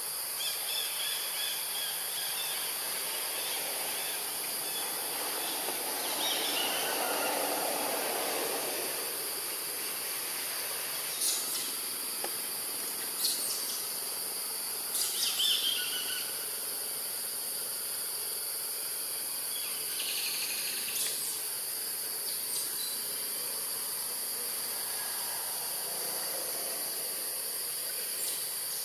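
Steady high-pitched drone of insects, with a few short high calls breaking in about a third of the way through and again past the middle.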